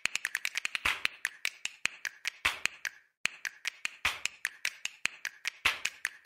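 Film-projector clatter sound effect over a countdown leader: rapid, even clicking with a louder click every second or so, and a short break about three seconds in.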